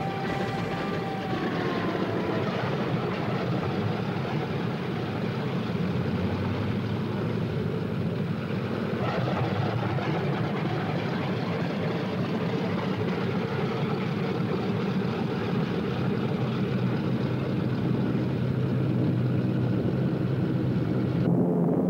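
Twin Allison V-12 piston engines of a Lockheed P-38 Lightning running steadily as the fighter taxis, with a deep drone and propeller wash; a whining tone drops in pitch over the first couple of seconds.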